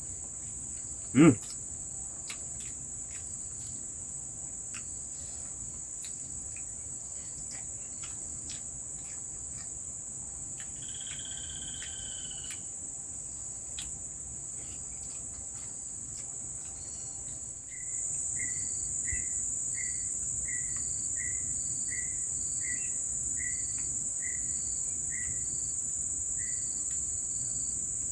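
Steady high-pitched chorus of forest insects, growing louder about two-thirds of the way through. A single short, loud sound comes about a second in. A brief two-note call sounds near the middle, and a chirp repeats about one and a half times a second near the end.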